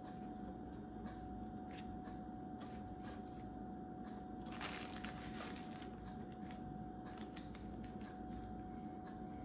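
Quiet room tone: a faint steady hum with scattered soft clicks and rustles, a small cluster of them about halfway through.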